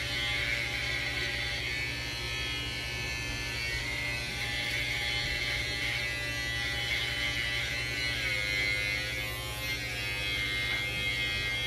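Electric hair clippers buzzing steadily as they cut hair at the side of the head, the pitch dipping slightly about eight seconds in.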